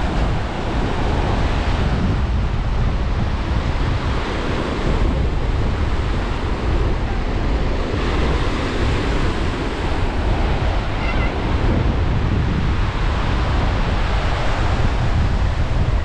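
Ocean surf breaking and washing on a beach in a steady rush that swells and eases, with wind buffeting the microphone in a low rumble.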